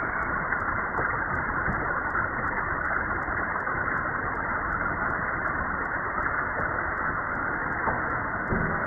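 Synthesized noise from an improvised electronic noise track: a steady, dense, dull hiss with everything above the mid-range filtered away.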